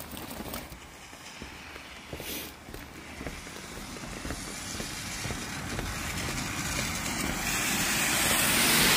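A small box truck approaching on a wet road, the hiss of its tyres on the wet asphalt growing steadily louder and loudest near the end as it passes.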